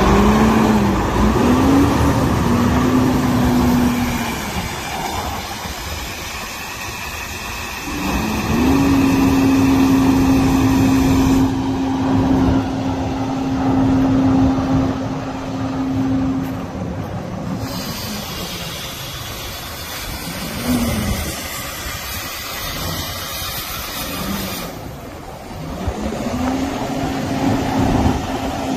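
An engine running with a steady hum that rises in pitch and holds there several times, falling back in between, under heavy wind rumble on the microphone.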